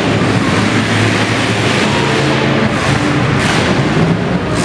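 Several demolition derby cars' engines running and revving hard together as the cars manoeuvre and ram one another, a loud steady mass of engine noise with the revving swelling a couple of seconds in.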